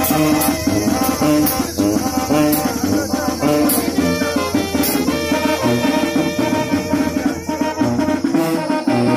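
Brass band of sousaphone, trumpets, saxophones and a snare drum with cymbal playing a tune with a steady beat: the sousaphone's repeating bass line under the horns, with cymbal hits every second or so.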